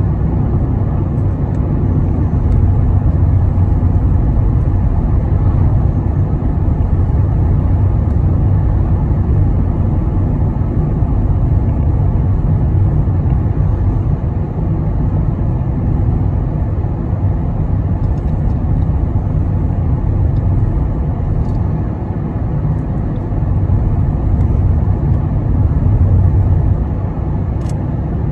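Steady low rumble of road and engine noise inside the cabin of a car cruising along a highway.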